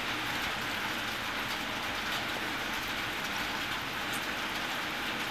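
Steady, even background hiss with no distinct events.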